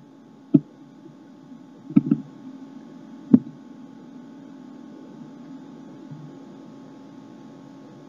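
Steady low hum with three short, sharp clicks or knocks, about half a second, two and three and a half seconds in.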